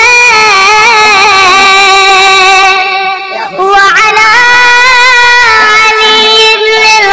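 A solo high voice singing long, wavering, ornamented held notes, with a brief pause about three seconds in before the voice slides up and goes on.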